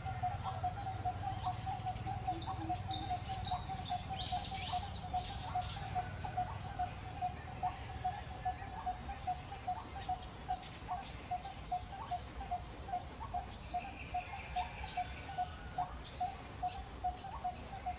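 Outdoor wildlife calls: a short low note repeated steadily, about two or three times a second, with higher bird chirps a few seconds in and again near the end.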